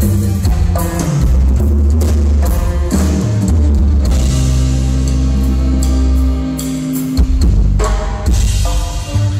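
A live band playing amplified: drum kit, electric bass and congas with guitar, a sound-check run-through of a song.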